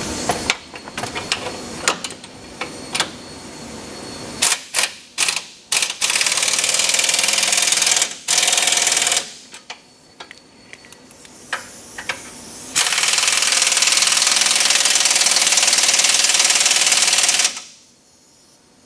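Impact wrench tightening the tow hook bolts that hold the grille-guard bracket to the frame. A series of sharp clicks comes first, then the wrench hammers in three runs: about two seconds, a short one, and a long one of nearly five seconds that cuts off sharply near the end.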